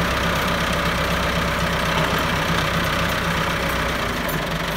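Massey Ferguson 375 tractor's four-cylinder diesel engine running at a steady speed.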